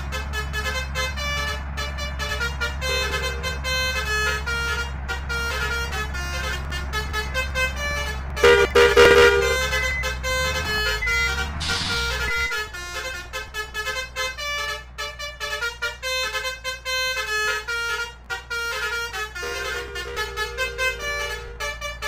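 Basuri musical bus horns playing a tune of short stepped notes over the low hum of running bus engines, with a louder horn blast about nine seconds in.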